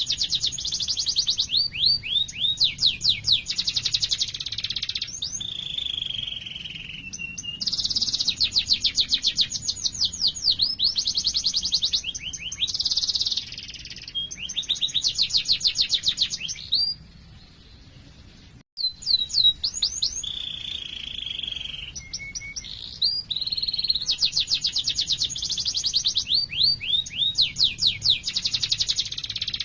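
Domestic canary singing a long song of fast rolling trills and chirps: runs of rapid repeated notes and quick falling sweeps, high-pitched. The song breaks off for about two seconds a little past the middle, then resumes.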